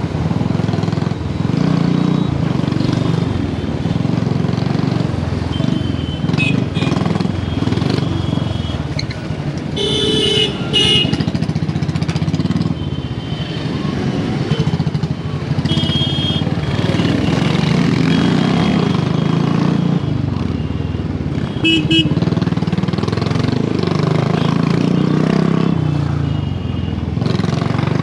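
Royal Enfield Bullet 350's single-cylinder engine running steadily under the rider in dense traffic, while other vehicles' horns honk again and again, the longest and loudest honks about ten seconds in and a quick double toot a little past the twenty-second mark.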